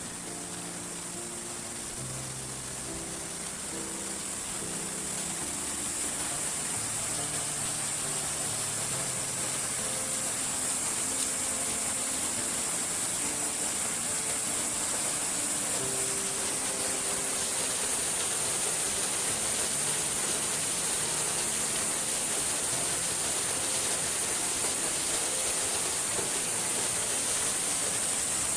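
Rushing water of a waterfall, a steady hiss that grows louder over the first several seconds and then holds even.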